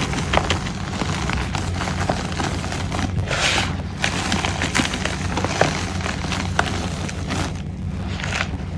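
Reformed gym chalk being crushed and crumbled, with many crisp cracks and a denser dusty crumble about three and a half seconds in, over a steady low hum.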